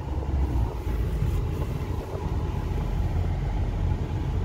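Ford F350 Super Duty's 6.4 L Power Stroke V8 turbodiesel running as the truck rolls slowly, a steady low rumble heard from inside the cab.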